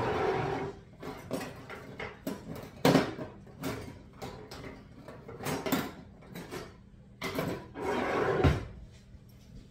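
A kitchen drawer being rummaged through: utensils clattering and knocking, with a longer rattle at the start and another near the end, and a sharp knock about three seconds in.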